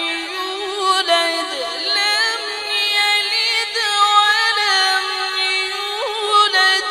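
A man reciting the Quran in the melodic tajweed style: one long drawn-out line of held notes with quick rising and falling vocal turns.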